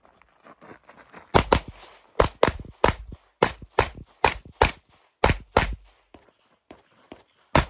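Rapid pistol fire from an MPA DS9 compensated Open-division competition pistol: about a dozen sharp shots, mostly in fast pairs a fraction of a second apart, with short gaps between pairs as the shooter moves between targets.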